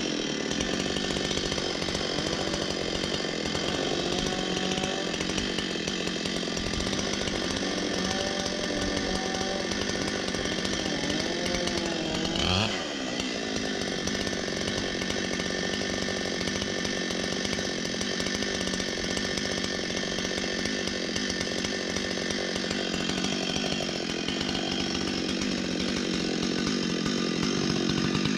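Chainsaw running continuously under load, cutting wood. The sound wavers and dips briefly about halfway through, then runs a little louder near the end.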